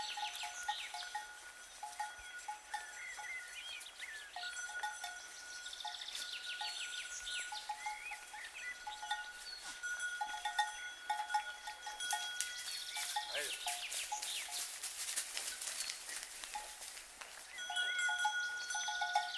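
Cowbells on livestock clanking in short, irregular runs, with a steady higher ringing tone that comes and goes.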